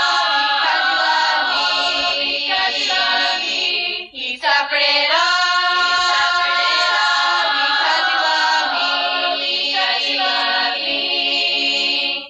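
A choir of girls singing a hymn in long held notes, with a brief break for breath about four seconds in; the singing stops abruptly at the end.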